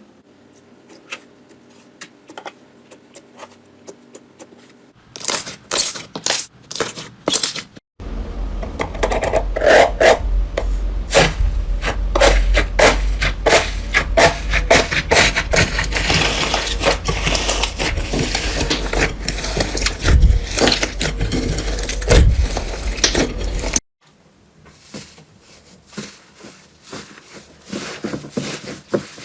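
Slime being pressed and squeezed by hand, making rapid sticky clicks, pops and crackles. The sound comes in separate cut segments: sparse soft clicks at first, then louder pops, then a long dense run of crackling over a steady low hum, dropping back to scattered clicks near the end.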